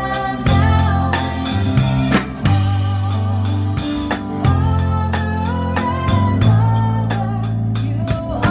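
Drum kit played in a steady beat, with cymbal and snare hits about four times a second, over sustained bass notes and a guitar melody: a band playing a worship song.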